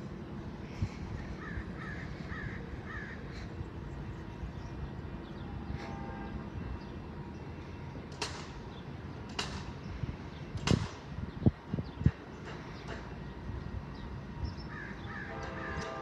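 A bird calling in short repeated series over a steady low outdoor background. A few loud, sharp knocks come about eleven to twelve seconds in.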